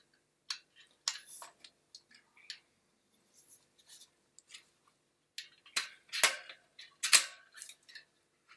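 Small metal clicks and scrapes of a trailer wheel's axle being pushed through the hub and handled, with a few louder clicks about six to seven seconds in.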